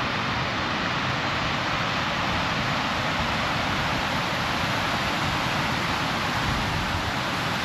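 Mountain stream cascading over rocks: a steady, even rush of water.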